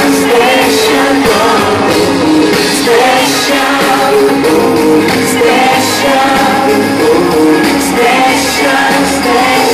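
Live pop/hip-hop concert music over the PA: a loud backing track with a steady beat and male vocals on microphone.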